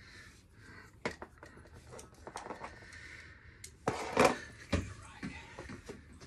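Penetrating fluid being applied from an aerosol can with a straw: scattered clicks and knocks of the can being handled, with short spray hisses, the loudest a brief burst about four seconds in.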